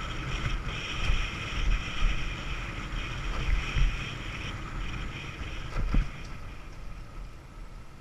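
Wind buffeting the microphone over a moped's engine running steadily while riding a rough dirt track, with a sharp knock from a bump about six seconds in. The engine note and overall level drop near the end.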